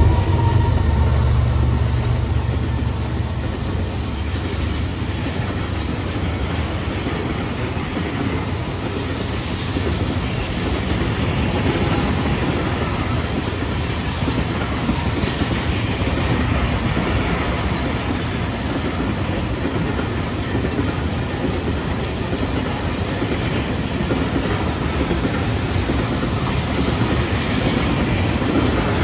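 BNSF diesel freight train passing close by: the locomotives' deep engine rumble at the start, with the tail of a horn note fading out in the first second, then freight cars rolling past with steady wheel-on-rail noise and clickety-clack.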